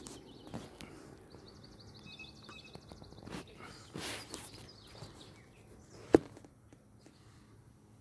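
Outdoor ambience with a small bird singing a quick series of high repeated notes in the first few seconds. There are brief rustles around the four-second mark, and a single sharp click about six seconds in is the loudest sound.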